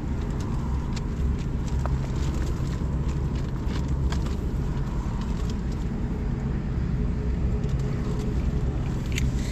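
A steady low hum, like a motor running, with scattered light clicks on top.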